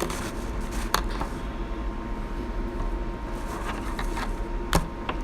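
Handling noise from slime containers and their lids: a sharp knock about a second in and a louder one near the end, over a steady low hum.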